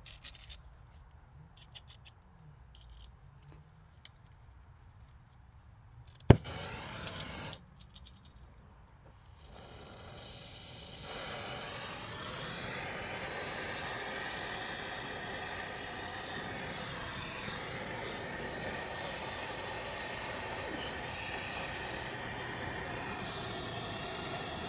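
A sharp click about six seconds in, then a brazing torch flame hissing steadily while a refrigerant line-set joint is brazed.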